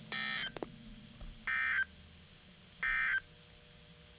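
Weather radio sounding the SAME end-of-message data bursts: three short, buzzy digital tone bursts about 1.3 s apart, the signal that the warning broadcast is over.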